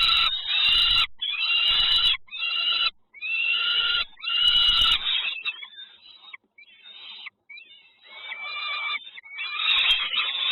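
Nestling birds giving harsh, raspy begging calls in a run of loud bursts about a second long each. The calls fade for a few seconds in the middle and grow loud again near the end.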